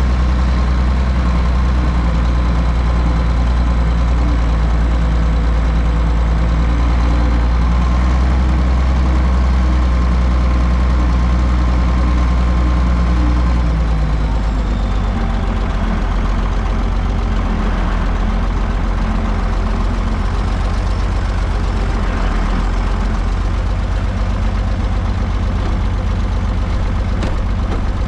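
Heavy farm-machinery engine running steadily under load; its low note drops and changes about halfway through.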